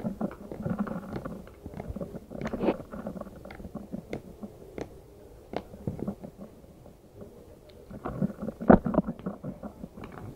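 Slime being squeezed and played with by hand: irregular squishing with many sharp little pops and clicks, a crisp, clear sound, with a louder run of pops near the end.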